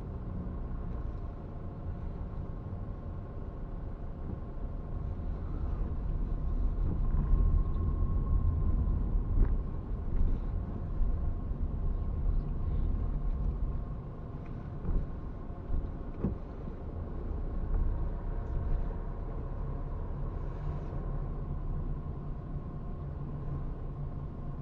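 Car driving slowly through a multi-storey car park, heard from inside the cabin: a steady low rumble of engine and tyres with a faint steady hum, louder for a few seconds in the first half, and a few short knocks.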